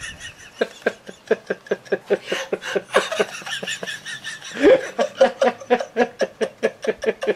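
Prolonged laughter: a long run of quick, rhythmic 'ha-ha' pulses, about five a second, with a rising whoop roughly two-thirds of the way through.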